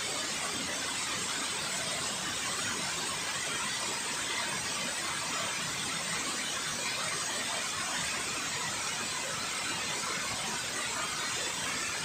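Water pouring down a dam spillway into the river: a steady, even rushing hiss with no let-up.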